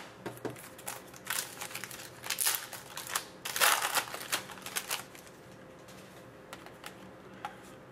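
Trading cards being handled at a table: a quick run of rustles, slides and light clicks as cards are sorted and set down. It thins out to a few faint ticks over the last few seconds.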